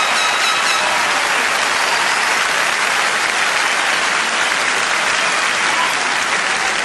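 Large convention audience applauding steadily, with a few short whistles near the start.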